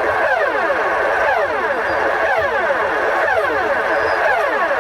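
Emergency alert (EAS-style) alarm tone playing loudly: a continuous cascade of overlapping tones that slide steeply downward, several starting each second.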